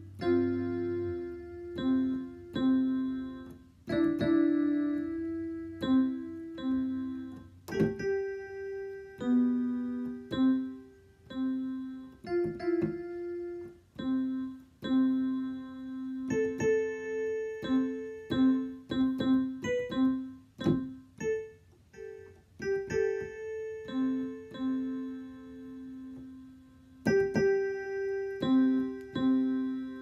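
Digital piano keyboard played on its electric piano voice: a slow, simple tune of single notes and two-note chords around middle C, each note struck and then fading.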